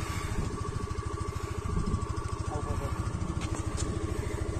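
Motorcycle engine running steadily at low revs, with a fast, even pulse. A couple of light clicks come about three and a half seconds in.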